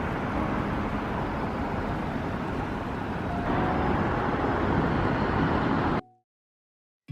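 Steady rumbling noise, heavy in the low end, that cuts off abruptly about six seconds in, leaving a second of silence.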